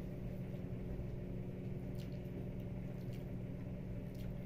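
Chewing and wet mouth sounds of someone eating spaghetti, over a steady low hum, with a few faint clicks.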